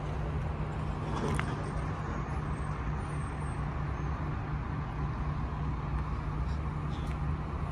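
A car engine idling steadily as a low, even hum, with a faint click about a second and a half in.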